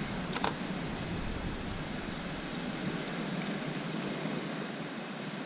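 Steady sea surf and wind on the microphone. About half a second in, a pair of scissors gives a short snip as it cuts the cuttlefish.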